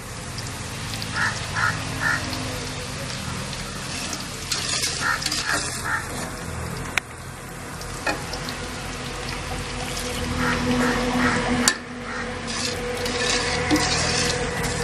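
Boondi (gram-flour batter drops) sizzling steadily as they deep-fry in hot oil. A few sharp metal clinks, the loudest near the end, come from the skimmer against the pan.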